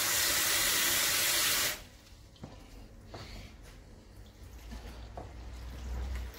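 Cold water running hard from a kitchen tap, cut off abruptly about two seconds in, then a few faint clinks and knocks as a metal bowl is handled over the pot.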